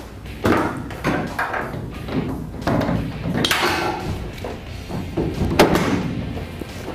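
Aluminum bed-extender frame knocking and clattering against a pickup's tailgate and bed as it is set in place and shifted by hand, with several separate thumps.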